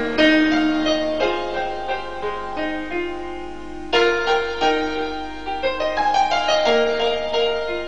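Instrumental song introduction: sustained keyboard chords that change every few seconds, with no singing.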